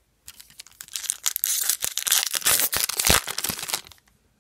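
Foil trading-card pack being torn open and its wrapper crinkled, a dense crackling rustle that starts shortly after the beginning and stops about four seconds in.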